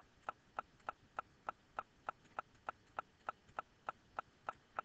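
Faint, steady ticking: short, evenly spaced clicks at about three a second.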